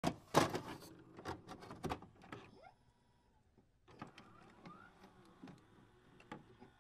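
Electronic glitch sound effects: scattered short clicks and static crackles, with a couple of brief rising blips. They are busiest in the first two and a half seconds and turn to sparse ticks after a short lull.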